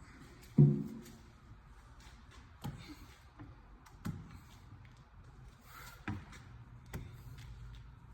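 A squeegee working over wet security film on a plate-glass window, pressing the water out from under it. A dull knock with a short low ring about half a second in, then a few smaller sharp taps against the glass, with faint rubbing between them.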